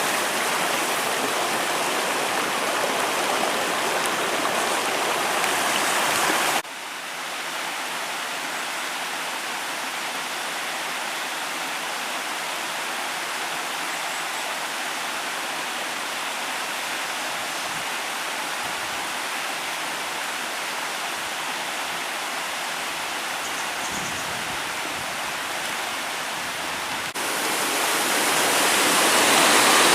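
Mountain stream rushing steadily over rocks. The sound drops suddenly to a softer level about six seconds in and jumps back up near the end.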